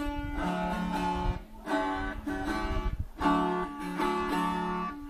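Instrumental break in a Brazilian caipira song: acoustic guitar strumming chords in a steady rhythm, with no singing.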